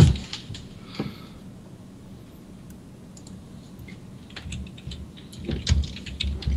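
A low thump at the start, then after a quiet stretch a run of short clicks and taps from a computer keyboard and mouse being worked, with a few low bumps among them, from about four seconds in.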